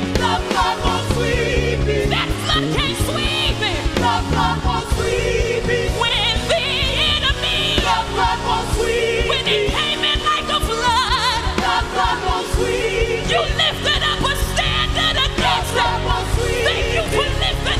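Live gospel worship music: singing voices with vibrato over a band with a steady bass line.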